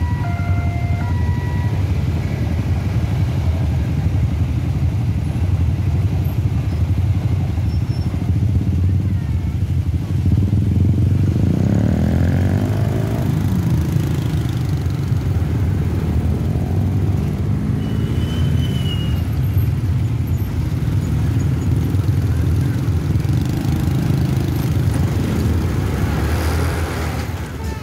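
Motorcycle engines running in a crowd at a railway level crossing, revving and pulling away together about 11 to 14 seconds in, then riding on with road and wind noise. The crossing's two-tone electronic warning alarm is still sounding at the start and stops about a second in.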